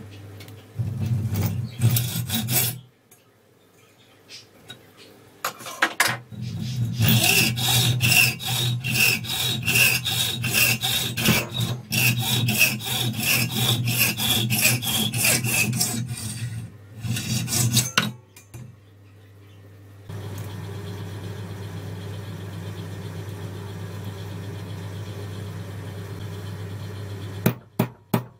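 Hacksaw with a high-speed-steel blade cutting through a brass pin, in quick back-and-forth strokes with short pauses. A steady hum follows for several seconds, and near the end a hammer starts tapping rapidly, peening the pin ends over into rivets.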